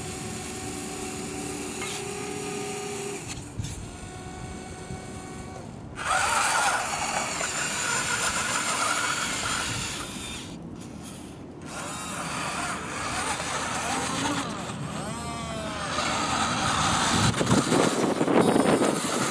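Small electric motors and gearboxes of a radio-controlled toy wheel loader whining as it drives and works its bucket arm. The whine starts and stops in spurts, grows louder about six seconds in, and rises and falls in pitch near the end.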